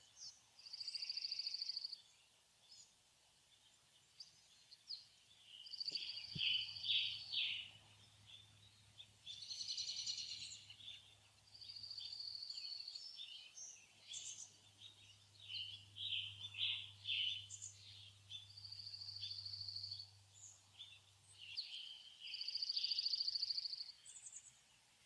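Faint birdsong: held buzzy trilled notes about a second long, repeated every few seconds and alternating with clusters of quick chirps.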